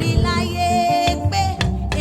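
Live gospel praise music: a band with bass, guitar and drums, with a wavering voice singing over it.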